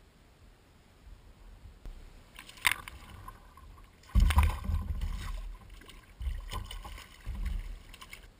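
A hooked pink salmon thrashing and splashing at the surface beside a kayak, in several loud bursts starting about four seconds in. A single sharp knock comes a little before.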